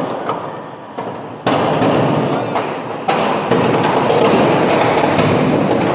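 Firecrackers packed into a burning Ravan effigy going off in a continuous barrage of crackles and bangs, with fresh loud bursts about a second and a half in and again a little after three seconds.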